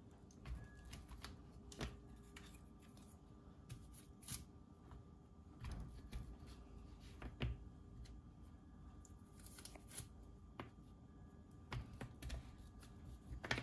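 Faint, irregular soft taps and scrapes of a plastic cookie cutter being pressed through rolled sugar-cookie dough on a baking sheet, a hand pushing the cutter down.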